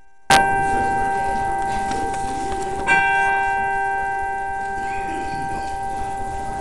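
A bell struck twice, about two and a half seconds apart, each stroke ringing on in a long steady tone that slowly fades.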